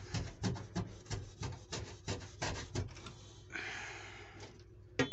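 A machete sawing back and forth through a rock wool insulation batt: quick rasping strokes about four a second, then one longer drawn-out rasp near the end.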